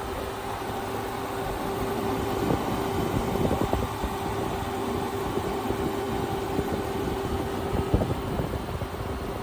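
Midea 8,000 BTU inverter window air conditioner running: a steady fan noise with a steady hum. A few light knocks come about three to four seconds in, and a sharper knock near the end.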